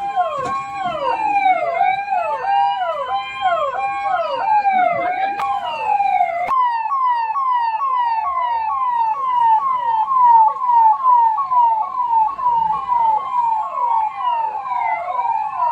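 Electronic emergency-vehicle sirens sounding together, one in a slow rising and falling wail and another in a faster yelp. About six and a half seconds in, the sound cuts abruptly to a single siren in a rapid, evenly repeating yelp of about two to three sweeps a second.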